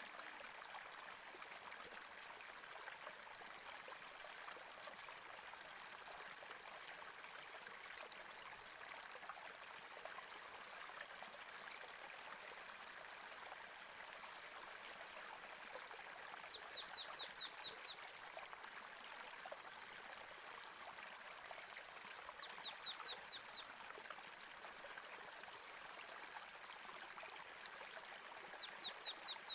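Faint, steady flowing-water sound like a stream, with a bird repeating a short, quick trill of about six high descending notes three times, roughly six seconds apart.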